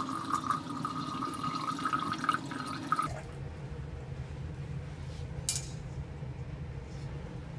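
Tap water poured into a glass beaker of rusty steel bolts, splashing and filling with a ringing pour tone, stopping about three seconds in. A low steady hum follows, with one brief glassy clink about five seconds in.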